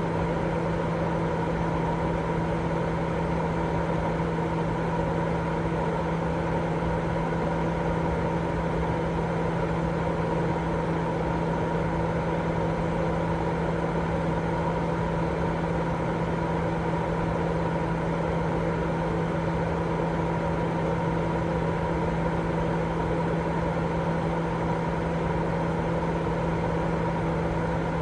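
Continuous white noise for baby sleep: a steady, unchanging rushing drone with a low hum running through it.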